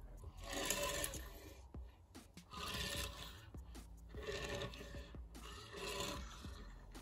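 Die-cast 1:64 toy cars rolled across a wooden tabletop, their small metal-axled wheels giving a rolling rasp in about four short runs.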